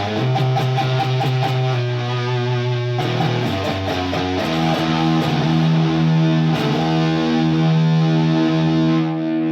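Electric guitar played through a Colorsound Fuzz Straight pedal, the fuzz circuit of a wah fuzz without the wah. Thick fuzzed chords are held and left to ring, changing chord about three seconds in and again about a second later.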